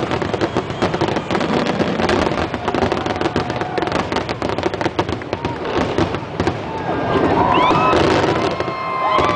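Fireworks going off in a rapid, continuous barrage of bangs and crackles. About seven seconds in, a crowd starts cheering and whooping over the explosions.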